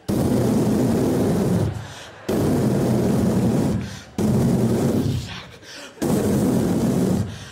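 A performer's voice imitating gunshots into a stage microphone: four loud blasts about two seconds apart, each starting sharply and fading out.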